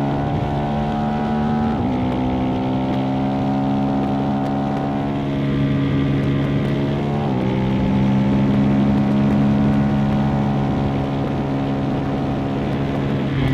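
2025 KTM 390 SMC-R's single-cylinder engine under way, its intake sound coming through a Stage 2 DNA air filter. It holds fairly steady revs with the pitch slowly sagging, and breaks briefly about two seconds in and again around seven seconds.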